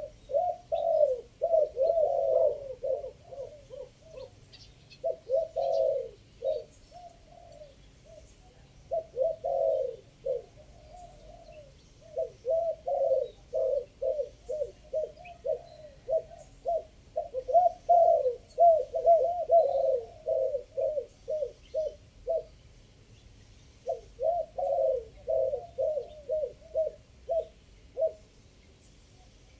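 Spotted dove cooing: phrase after phrase of low, repeated coo notes in the three-note style dove keepers prize, with a short break about three quarters of the way through.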